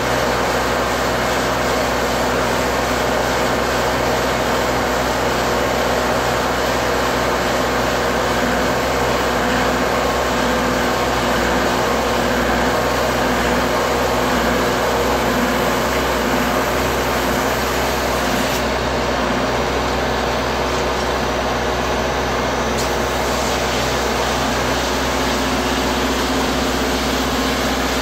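PMC AP-2 spray-foam gun spraying closed-cell soy foam insulation: a loud, steady rushing hiss, with a steady mechanical hum beneath. The highest hiss dims for a few seconds past the middle.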